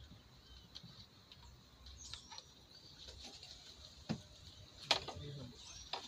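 Two sharp clicks, about four and five seconds in, as an ignition coil and its connector are handled in the engine bay. Birds chirp faintly in the background.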